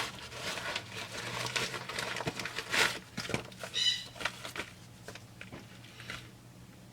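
Rustling and scattered light clicks of packaged rubber fuel line being handled, with a brief squeak about four seconds in; the handling dies down after about five seconds.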